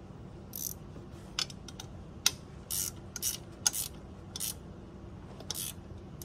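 Hand tool working on the metal linkage of a John Deere 2025R's auto throttle kit: a string of sharp clicks and short metallic scrapes, about eight in all, at an uneven pace.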